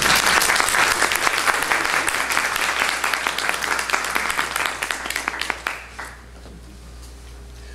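Audience applauding, dense clapping that dies away about six seconds in, leaving quiet room tone.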